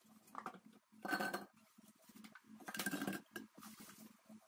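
Chopped apple pieces tipped from a bowl, tumbling and rustling into a large glass jar in two short pours, about a second and about three seconds in.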